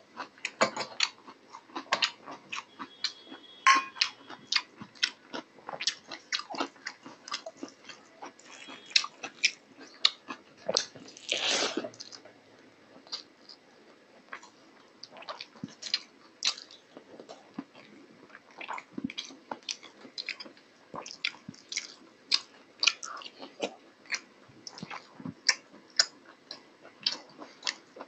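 Close-miked chewing and lip-smacking of a mouthful of mutton curry and rice, with wet squelches as fingers mix rice into the curry: a steady run of short, irregular smacks and clicks.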